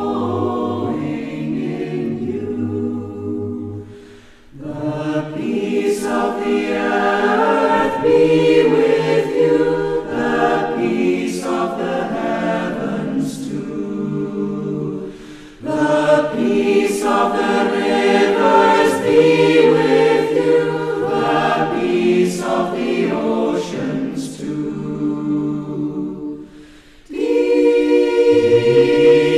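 A choir singing a short worship song in long sustained phrases, with brief breaks between phrases three times.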